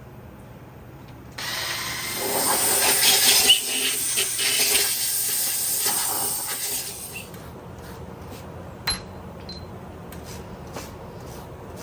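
Old head gasket material being scraped off the cast-iron deck of a Mahindra tractor diesel's cylinder block: a harsh, uneven scraping for about five seconds, starting about a second and a half in. A few light clicks and taps follow.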